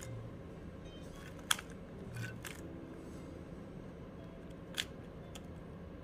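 MoYu RS3M 3x3 speedcube being turned by hand: a few sharp plastic clicks as its layers turn and snap into place, the loudest about one and a half seconds in and again near the end.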